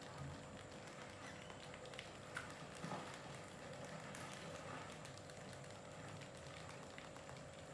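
Faint scurrying of rats' feet on concrete and the wooden ramps: light irregular pattering and scratching clicks, with a couple of sharper taps about two and three seconds in, over a steady faint hum.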